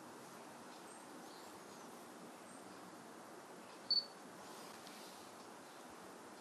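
A camera's single short high-pitched beep about four seconds in, the autofocus-confirmation beep signalling focus lock, over faint steady hiss.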